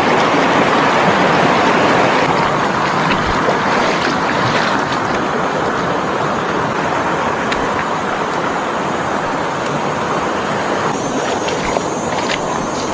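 Shallow, rocky jungle stream running over stones: a loud, steady rush of water.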